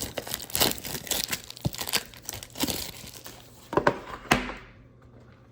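Plastic wrapping crinkling and tearing as it is handled, with two sharp snaps about four seconds in; the crinkling stops soon after.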